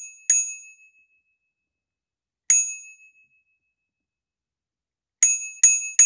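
Bright bell-like chime struck singly, each ding ringing out briefly and fading, with dead silence between: one just after the start, one about two and a half seconds in, then three quick dings near the end.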